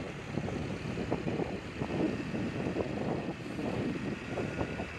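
Motorbike ride: steady engine and road noise with wind buffeting the microphone in uneven gusts.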